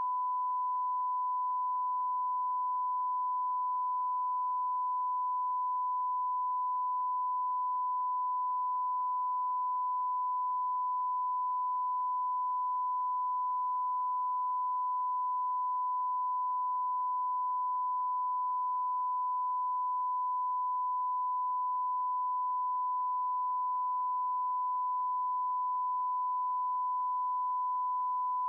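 Steady 1 kHz sine-wave test tone from a sound-card signal generator, one pure pitch held at a constant level.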